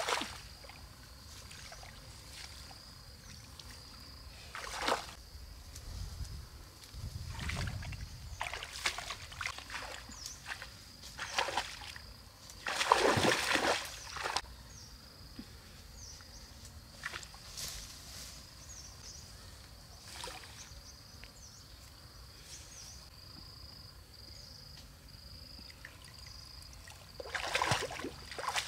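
Hands splashing and sloshing in shallow muddy pond water while feeling for fish, in scattered bursts, the loudest about halfway through and another run near the end. A faint steady high-pitched tone runs underneath.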